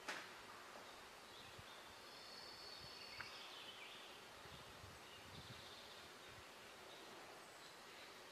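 Near silence: faint outdoor ambience with soft, high, distant chirping, plus a sharp click just after the start and a small tick about three seconds in.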